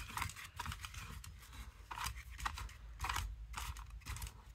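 Hard plastic parts of a clamp-on magnifying lamp being handled and screwed together: a run of small irregular clicks, scrapes and rustles.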